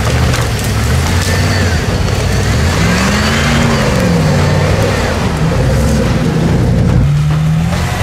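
Off-road 4x4 engine revving under load. Its pitch rises to a peak about three and a half seconds in and falls away, with another short rev near the end.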